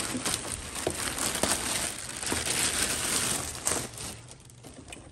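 Clear plastic bag crinkling and rustling as it is pulled up and off a sewing machine, dying away about four seconds in.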